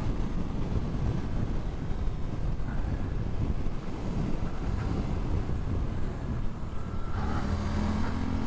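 Wind buffeting the microphone over a Suzuki GSX-8S's 776cc parallel-twin engine, with the motorcycle ridden at road speed. About seven seconds in, a steady engine note comes through more clearly.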